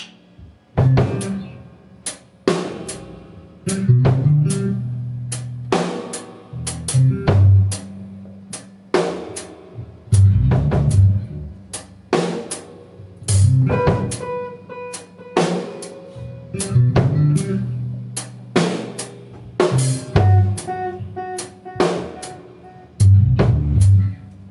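A band playing an instrumental passage: drum kit with bass drum and snare hits, with electric guitars. The band comes in about a second in and keeps a steady beat.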